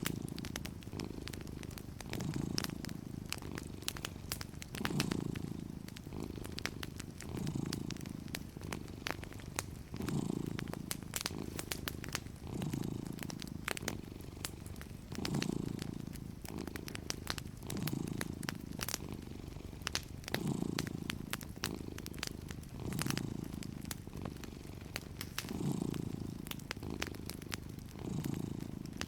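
A cat purring steadily, the low rumble swelling and easing about every two and a half seconds with its breathing, while a wood fire crackles with small scattered pops.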